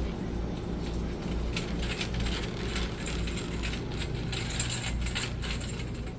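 Shopping cart being pushed along, its metal basket rattling and clinking over a low, steady thudding of about two beats a second.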